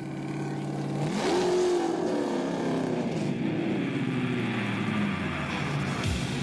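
A car engine running, revved sharply once about a second in, its pitch then falling slowly back over the next few seconds.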